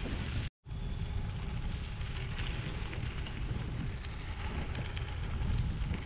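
Wind buffeting the microphone over the crunch and hiss of gravel bike tyres rolling on a dirt road. The sound cuts out briefly about half a second in.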